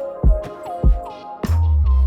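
Electronic soul music played live, here without vocals: kick drum beats with short synth notes that slide down in pitch, and a deep bass line coming in about three-quarters of the way through.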